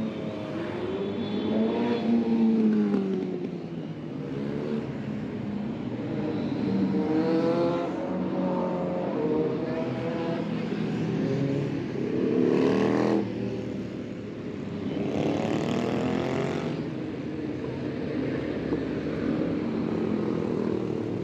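Motorcycles of a group rally riding past one after another along a busy road, their engine notes rising and falling in pitch as each accelerates by, over steady traffic. Several louder passes stand out.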